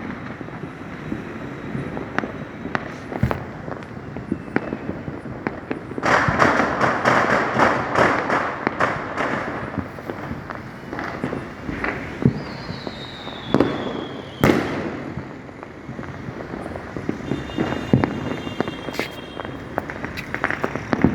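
Deepavali firecrackers and fireworks going off: scattered sharp bangs, with a dense stretch of crackling about six seconds in. Around the middle, a whistle falls in pitch, followed by a loud bang.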